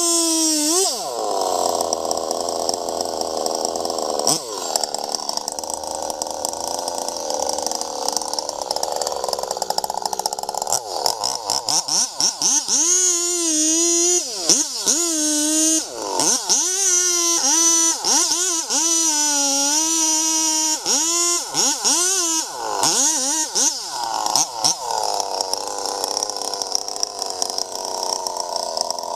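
Chainsaw cutting wood, its engine note sagging under load and climbing back again many times over. The first stretch and the end are a rougher, steadier cutting sound.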